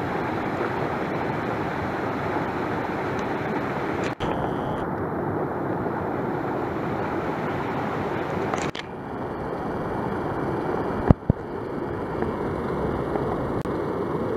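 Shallow creek water rushing over rocks and ice: a steady noise that changes abruptly a few times.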